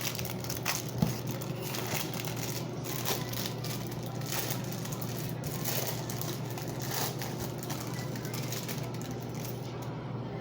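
Irregular rustling, crinkling and light clicks of food and packaging being handled during food preparation, over a steady low hum.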